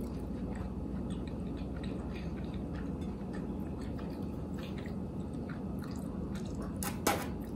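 Close-miked chewing of food: soft mouth sounds and small clicks over a steady low hum, with one short, sharper sound near the end.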